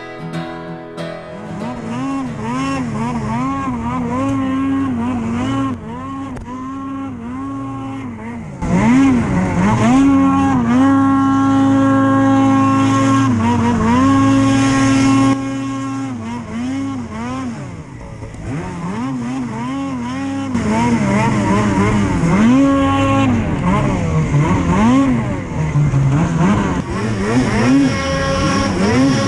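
Snowmobile engines revving, the pitch rising and falling again and again as the throttle is worked; louder from about nine seconds in.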